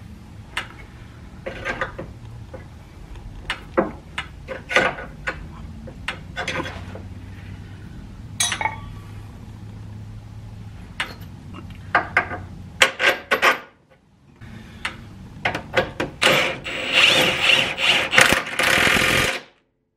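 Scattered metal clanks and knocks of hand work on a lower control arm's rear mount. Near the end come a few short bursts from a 1/2-inch impact wrench, then about three seconds of steady hammering as it drives the bolt in, cut off abruptly.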